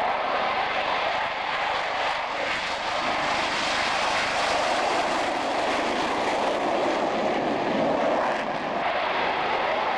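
F-4 Phantom's twin J79 turbojets at takeoff power, a loud, steady rushing jet noise as the fighter lifts off and climbs away.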